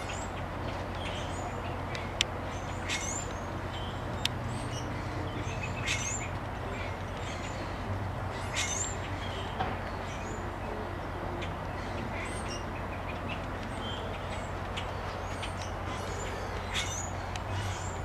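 Birds calling at a wading-bird rookery: many short, high chirps and squawks scattered over a steady background hiss. Two sharp clicks come in the first few seconds.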